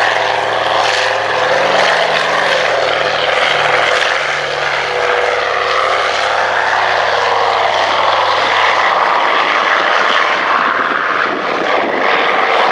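Consolidated PBY-5A Catalina's two Pratt & Whitney R-1830 Twin Wasp radial engines and propellers running at take-off power through the take-off run, a loud steady drone whose low engine tones fade in the last few seconds.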